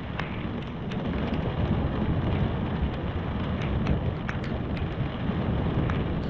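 Steady rain falling, with scattered sharp ticks of single drops landing close to the microphone over a continuous low rumble.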